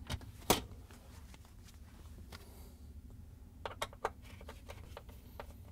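Faint clicks of a plastic dishwasher spray arm being seated and a Torx screwdriver tightening its mounting screw: one sharp click about half a second in, then a few quick clicks a little past the middle.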